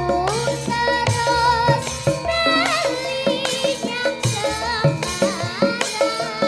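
A young girl sinden singing an ornamented Javanese vocal line, with gliding, wavering notes, through a microphone. A gamelan accompanies her, with regular drum strokes keeping a lively beat.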